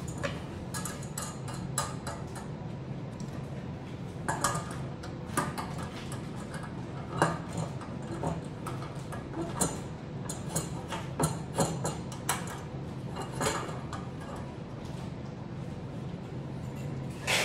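Aluminum sluice legs and brackets clinking and knocking as the legs are fitted into the brackets and fastened by hand, with irregular sharp clicks scattered throughout. A steady low hum runs underneath.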